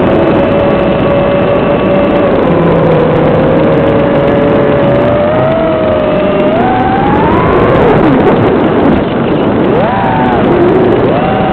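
FPV quadcopter's electric motors whining, several tones gliding up and down in pitch together as the throttle changes, with a steep rise about seven seconds in and a quick dip and swoop near the end.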